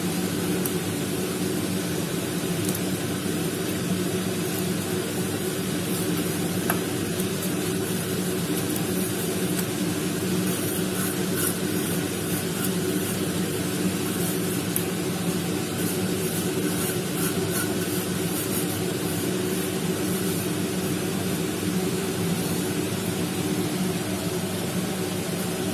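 Pot of water at a rolling boil on a gas burner, a steady hum and bubbling hiss, as washed rice rava is poured in and stirred, with a few light clicks.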